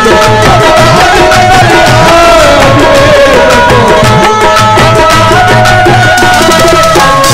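Live qawwali music: harmoniums holding steady chords over fast tabla strokes, with a singer's voice drawing out one long, wavering note through the first few seconds.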